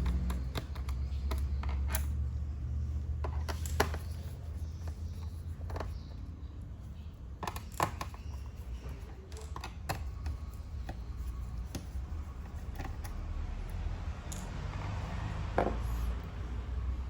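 Scattered clicks and taps of hard plastic and small metal parts being handled while working on an Asus A1400EA laptop, irregular, with sharper knocks about 4 and 8 seconds in, over a steady low hum.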